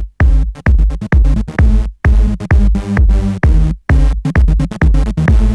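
Electronic dance music with a heavy drum-machine beat, broken by short sudden silences about every two seconds.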